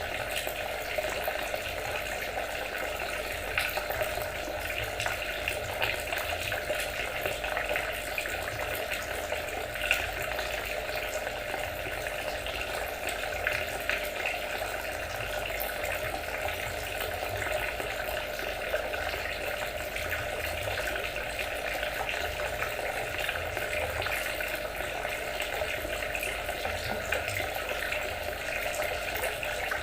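Water trickling steadily, with a constant stream of small splashes and droplet ticks.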